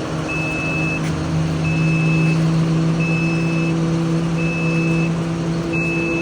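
Vehicle reversing alarm beeping in a steady on-off pattern, about five long beeps roughly one every second and a half, over the steady hum of a running engine.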